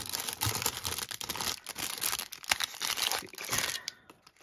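Clear plastic packaging crinkling and crackling as it is handled, dying away shortly before the end.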